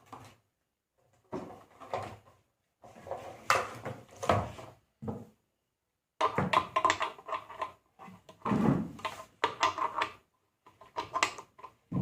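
Irregular bouts of knocking, clicking and rattling as parts of a homemade spot welding machine are handled and a plug-in connector is fitted.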